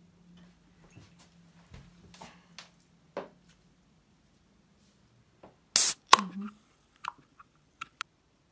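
Glass bottle's crown cap coming off: a short loud rush of escaping gas about six seconds in, followed at once by a sharp click, then a few lighter clicks.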